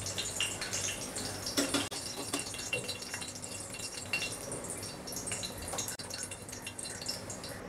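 Hot oil sizzling and crackling in a stainless steel frying pan as chicken chapli kebabs shallow-fry, with a steady hiss and many small pops. A few louder clicks and scrapes come as a spatula slides under a kebab and lifts it out.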